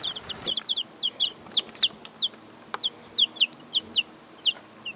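Baby chicks peeping: a steady run of short, high, downward-sliding peeps, two or three a second, with one sharp click a little past halfway.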